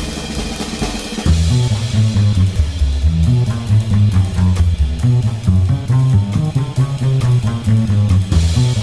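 Background rock music with drums and guitar over a steady beat; a low bass line comes in about a second in.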